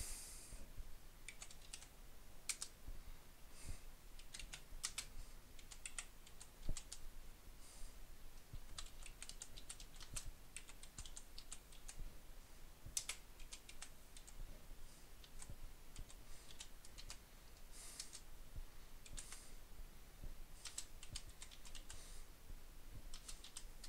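Quiet, irregular key clicks of typing on a computer keyboard, coming in quick runs with short pauses between them.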